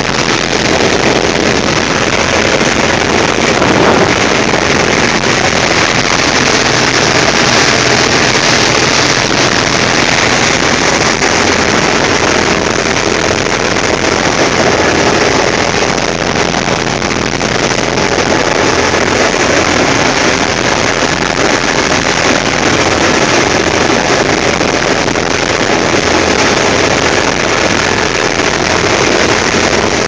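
Combine harvester running steadily while harvesting corn, heard from inside the cab: a loud, even machine drone with a low hum underneath.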